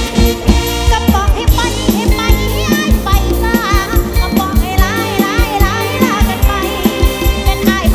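Live mor lam band music with a steady, heavy bass beat under a high, wavering lead melody.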